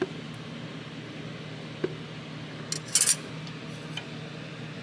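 A flat steel setting bar clinking against the steel cutterhead and knife of a moulder's left spindle: a faint click about two seconds in, then a short cluster of metal clinks about three seconds in, over a steady low hum.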